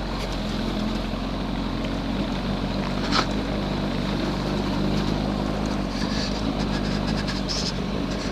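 Motorcycle engine running at a steady speed while riding, with a single sharp click about three seconds in.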